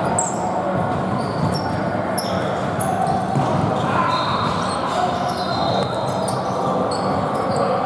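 Indoor basketball game in play: a ball bouncing on the court, short high squeaks scattered throughout, and players' voices, all echoing in a large hall.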